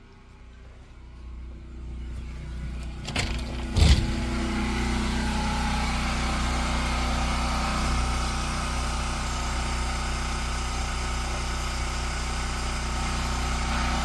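An engine starts, with a couple of sharp knocks as it catches about four seconds in, and then runs steadily with a low hum.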